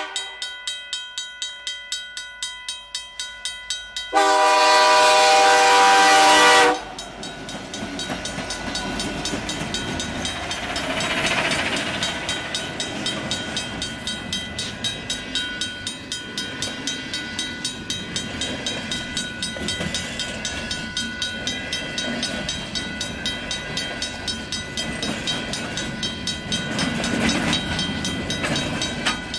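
A bell rings steadily in a regular pulse. About four seconds in, the CN freight locomotive sounds one long horn blast of about two and a half seconds. After that the train rumbles past under the bell.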